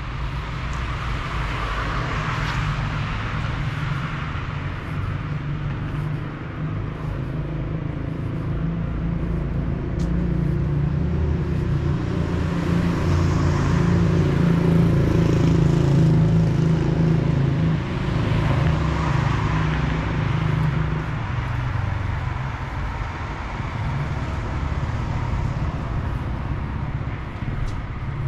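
Outdoor street ambience of cars passing on the road, over a low choppy rumble on the microphone that swells in the middle and eases after about twenty seconds.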